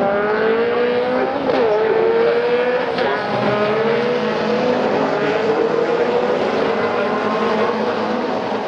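Several Caterham R300 Superlight race cars driving hard through a corner in close succession, their engines revving up and down. The engine pitch drops sharply about a second and a half in and again at three seconds, as on a lift or gear change, then climbs again as the cars accelerate away.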